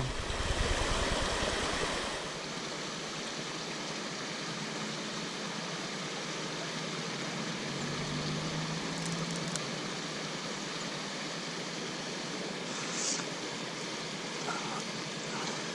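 Steady rush of water running over the rocks of a small creek cascade.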